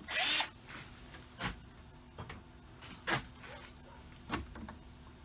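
A hand deburring tool scraping around the edge of a freshly drilled and tapped hole in a metal part: one short rasping scrape at the start, then a few lighter scrapes and taps spaced out over the next few seconds.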